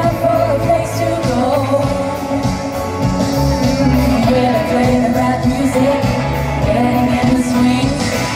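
Live pop band playing with women singing the lead vocals into microphones, heard from the crowd at a concert.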